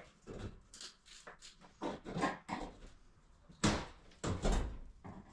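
A screwdriver prying a cheaply made cabinet box off a wall: a string of wooden knocks and creaks, with a loud crack about three and a half seconds in and a heavier, deeper knock soon after.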